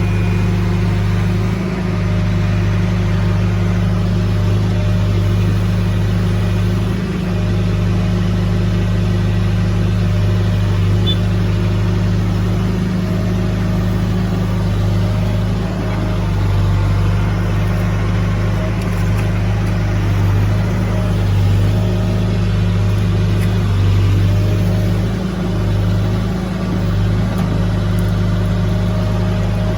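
Diesel engine of heavy machinery running steadily at a constant speed, with a few brief dips in its tone.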